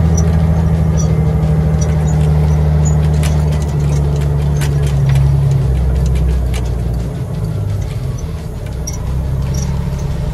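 Semi truck's Caterpillar 3406 diesel engine running at low speed in city traffic, heard from inside the cab as a deep steady drone. It eases off about seven seconds in and picks up again near the end, with scattered light clicks in the middle.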